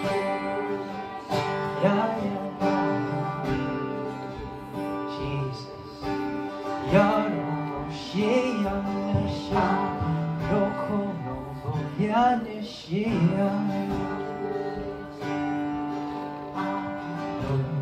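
Worship music: guitar and sustained chords under a voice singing wordless phrases that swoop up and down in pitch.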